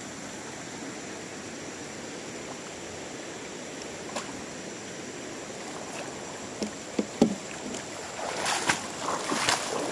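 Shallow river water flowing steadily, with a few sharp clicks, then splashing and water streaming off a cast net as it is gathered up and lifted out of the river from about eight seconds in.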